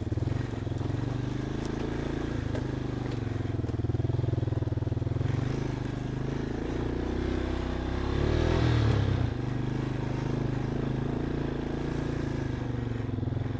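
Off-road vehicle engine running steadily, with a brief rise in revs about eight seconds in.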